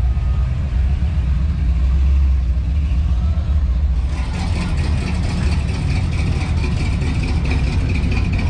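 A car engine running with a low rumble. About four seconds in, a brighter hiss joins it.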